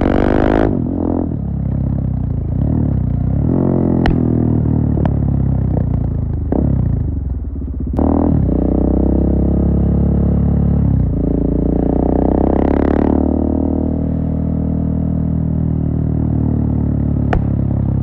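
2017 KTM 690 Duke's single-cylinder engine through a full Akrapovic exhaust with a GPR decat pipe, heard close to the silencer while riding. The engine note rises and falls with throttle and gear changes, with a few sharp clicks.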